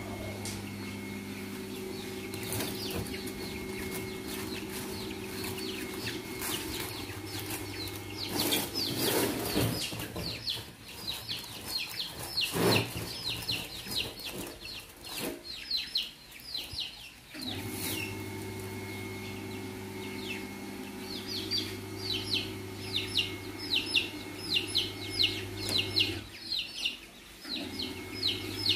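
Bantam chicks peeping, quick high chirps several times a second in two long runs. Rustling and a few knocks come from a woven mat being handled over the wire cage during the first run. A steady low hum sounds in the gaps between the runs.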